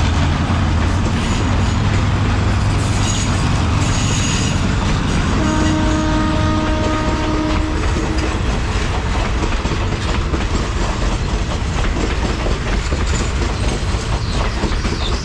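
Passenger carriages of a train rolling past, wheels clicking and rumbling on the rails, with the low drone of the Hitachi diesel-electric locomotive fading over the first few seconds. About five seconds in, the locomotive's horn sounds one steady note for about two seconds.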